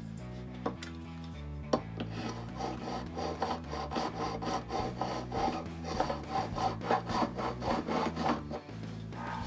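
A fret file in a holding block is rubbed back and forth over the metal frets at the top end of a Höfner bass fingerboard, rough-levelling the high frets where the neck warps up over the body. The rasping strokes start about two seconds in and come about twice a second until shortly before the end.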